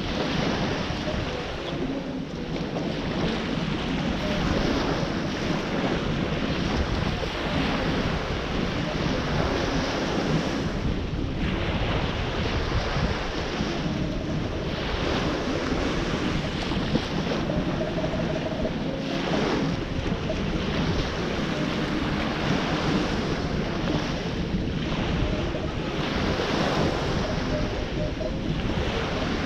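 Ocean surf breaking and washing on the shore, a steady noise that swells and eases every few seconds, with wind rumbling on the microphone.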